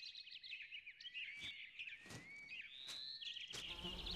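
Nature ambience of birds chirping and whistling, with dense high chirps and a few longer whistles that glide upward, slowly growing louder.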